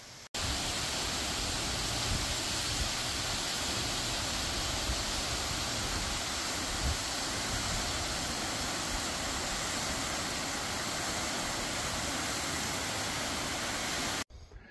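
Steady, even rushing of Cascade Falls, a tall waterfall pouring down a rock cliff. It cuts in just after the start and cuts off shortly before the end.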